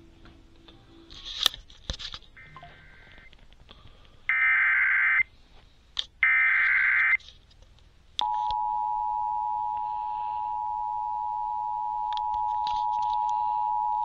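Emergency Alert System header: three warbling data bursts of about a second each, roughly two seconds apart, then about eight seconds in the steady two-tone attention signal starts. It marks a new weather warning about to be read.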